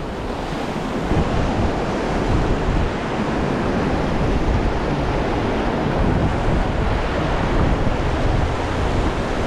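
Whitewater rapid rushing steadily around a raft. It is heard up close from the boat, with wind buffeting the microphone.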